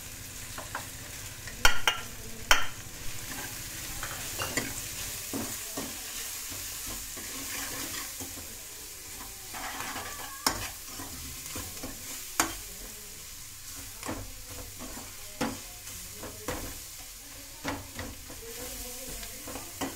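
An onion, garlic and ginger masala frying in oil in a steel kadai, sizzling steadily, while a metal ladle stirs it with scattered scrapes and knocks against the pan, the loudest about two seconds in.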